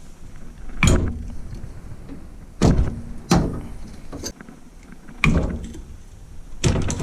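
About five sharp knocks and clunks, spaced a second or two apart, from tools and plumbing fittings being handled while the hot water line is hooked up.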